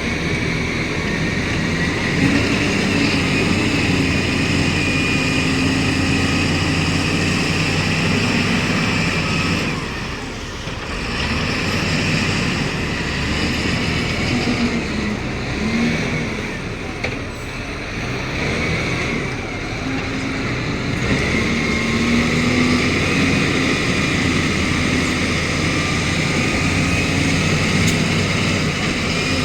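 Heavy diesel machinery engine running steadily under load, its note rising and falling, with brief dips in level about a third of the way in and again near the middle.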